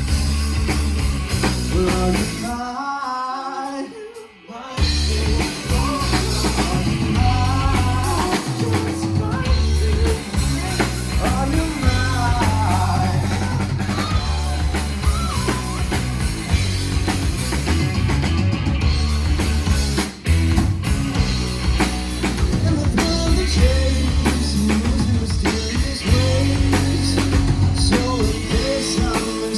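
Live rock band playing loud, with drums and singing. About three seconds in, the band stops for a moment, leaving only a wavering line of melody, then crashes back in at full volume.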